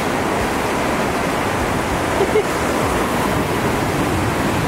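Ocean surf breaking and washing up a sandy beach: a steady rushing noise, with a short faint pitched call about two seconds in.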